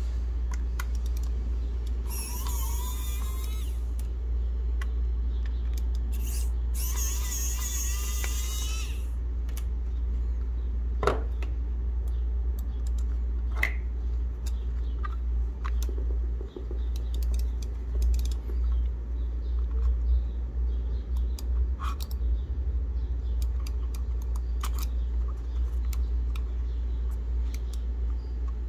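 Plastic mouse handled and turned in the hands: scattered small clicks and knocks over a steady low hum, with two short rasping, squeaky scrapes in the first ten seconds.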